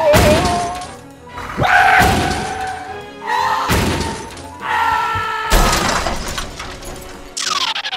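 Cartoon crash and smash sound effects, about five in a row roughly two seconds apart, over background music.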